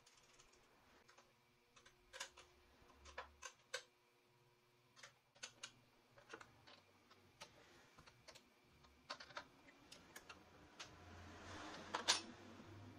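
Scattered faint clicks and small metallic taps of a wrench and fingers working the nuts and bolts on a grinder's metal mounting bracket, with a sharper knock near the end.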